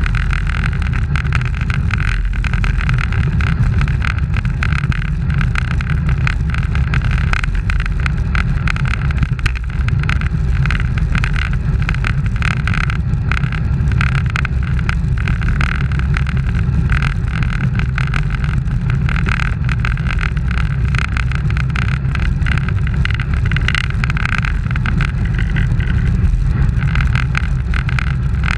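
Steady wind noise buffeting an action camera's microphone on a road bike moving at racing speed in a pack, with a low road rumble underneath and no change throughout.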